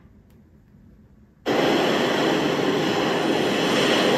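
Ocean surf and beach wind from a video playing through an M2 MacBook Air's built-in speakers: a steady rushing noise that comes in suddenly about a second and a half in, after a brief quiet gap.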